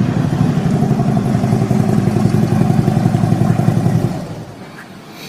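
Motorcycle engine running steadily, a sound effect added for a toy Harley-Davidson motorcycle. It dies down about four seconds in.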